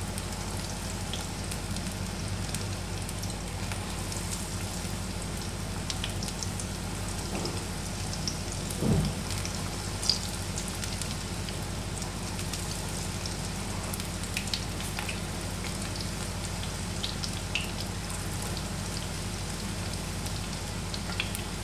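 Besan-batter pakoras deep-frying in hot oil in a pan: a steady sizzle with scattered small pops and crackles. A brief, louder low sound comes about nine seconds in.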